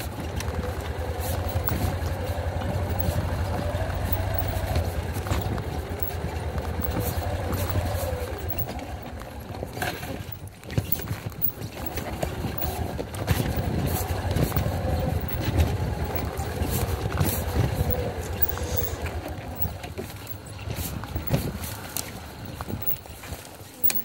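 Yamaha XG250 Tricker's air-cooled single-cylinder engine running as the bike rides a rough dirt forest trail, its revs rising and falling, with knocks and rattles from the bike over bumps. The engine note dips briefly about ten seconds in and eases off near the end.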